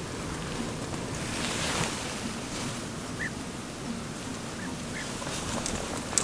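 European bee-eaters calling: a few short, faint chirped calls over a steady outdoor hiss, with a sharp click at the very end.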